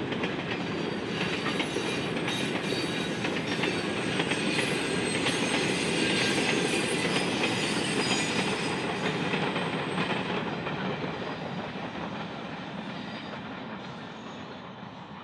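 Loaded grain hopper wagons rolling past on the rails, their wheels clicking over the rail joints. The sound fades away once the last wagon has passed, about ten seconds in.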